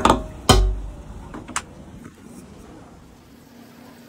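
Two dull knocks in quick succession from handling at a motorcycle fuel tank's filler opening, then a single click about a second and a half in. After that only a faint steady hum.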